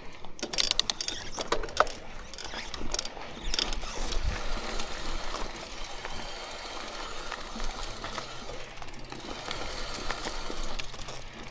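Mountain bike rolling over rough trail, its parts rattling and clicking, most densely in the first three and a half seconds, then a steadier rolling noise.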